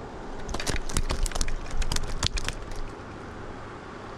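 Rapid, irregular crackling and clicking for about two seconds as hands work the hook out of a hand-held trout, over the steady rush of river water.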